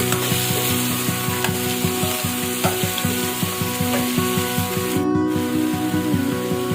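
Food frying and sizzling in hot oil in a pan while being stirred, a steady hiss.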